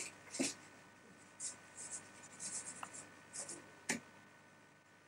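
Pen scratching on paper in a series of short strokes as a signature is written, with a sharp knock about four seconds in.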